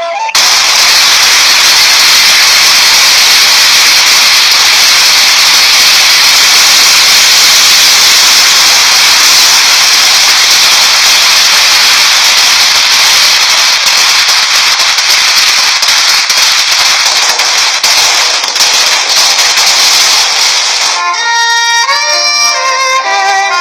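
Loud, dense fireworks crackling and hissing, a steady spray of tiny pops. It stops about three seconds before the end, and violin music takes over.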